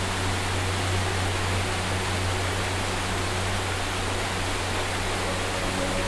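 Waterfall cascading down a rock face: a steady, even rush of falling water.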